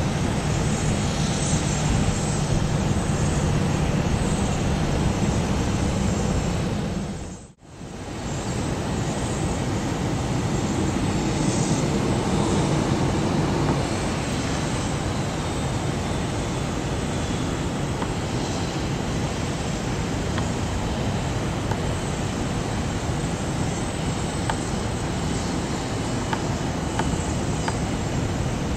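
Jet airliner engines running at idle and taxi power across an airfield, a steady rushing noise that cuts out for a moment about seven and a half seconds in.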